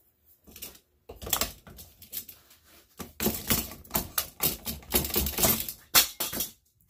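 Hammer striking the steel body of an electric water valve clamped in a vise, knocking loose a part that is stuck in it. A few scattered knocks, then a fast run of blows from about three seconds in, some with a short metallic ring.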